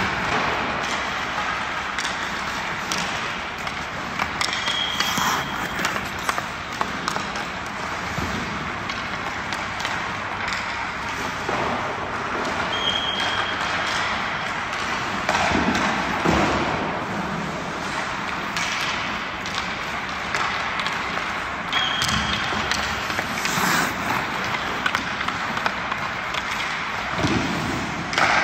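Hockey practice on ice: skate blades scraping and carving, with scattered knocks of sticks and pucks over a steady hiss. There are a few brief high chirps.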